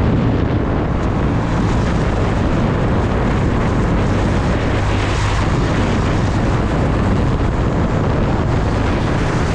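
Steady wind rushing over the microphone of a camera mounted on the outside of a moving car, mixed with tyre and road noise.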